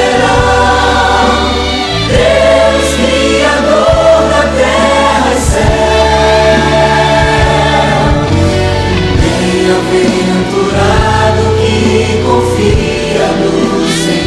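Choir singing a Christian worship song with instrumental accompaniment: sustained chords over a steady bass line.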